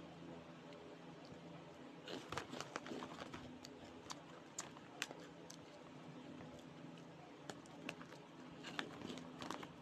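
Plastic snack wrapper crinkling and rustling in the hands, in scattered bursts of sharp crackles: two clusters, one about two seconds in and one near the end, with single crackles between.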